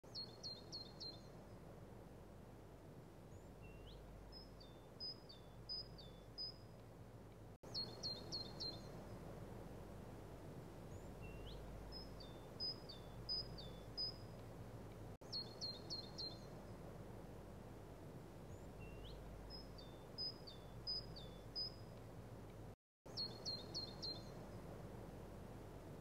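Faint songbird song: a quick series of high chirps, then a rising whistle and a few separate higher notes. The same phrase repeats about every seven and a half seconds as a loop, with a brief dropout between two of the repeats.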